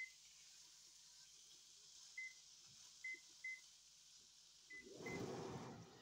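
Electronic oven control panel beeping as its keypad is pressed to set the oven to 400 degrees: six short, high beeps, unevenly spaced. Near the end a brief, louder rush of noise overlaps the last beeps.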